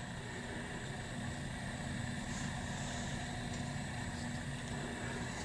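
A Harbor Freight electric motor on a Shopmaster lathe-mill, running with a steady electrical hum and a constant low tone.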